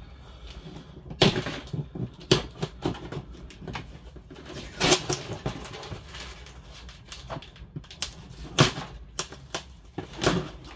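Hands handling laptop parts and packaging: an irregular string of knocks, clicks and rustles, the sharpest knocks about a second in and again near the end.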